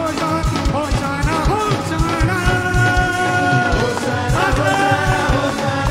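Hindi Christian worship song performed live: a fast, steady drum beat under a sung melody, with one long held note in the middle.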